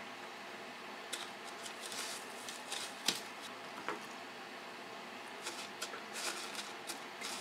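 Scattered soft clicks, taps and crumb rustles of hands breading scallops: dipping them in a bowl of beaten egg and pressing them into panko on a metal tray. One sharper tick comes about three seconds in.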